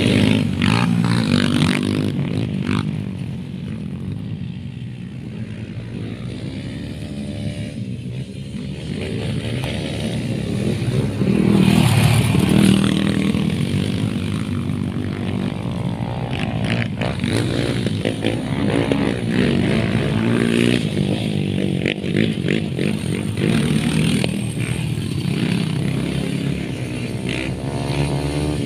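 Motocross dirt bike engine being ridden hard round a dirt track, revving up and down through the gears, with a louder pass about twelve seconds in.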